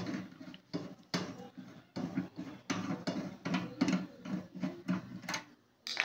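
Screwdriver and fingers working at wire terminals inside a microwave oven's sheet-metal casing, disconnecting the leads around the magnetron: a run of short, irregular clicks and scrapes, about two or three a second, with a brief pause near the end.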